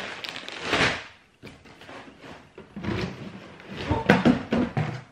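Plastic bag crinkling as a bagged horse rug is handled, then rummaging inside a cardboard shipping box, with a run of short knocks and rustles loudest about four seconds in.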